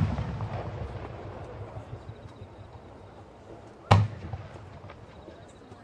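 Aerial firework shells bursting. The deep boom of one burst fades slowly over the first few seconds, and a second sharp boom comes about four seconds in, then dies away.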